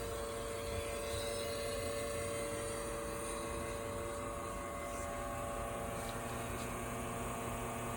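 Espresso machine's pump running steadily with an even hum as it pushes water through the ground coffee to pull a shot.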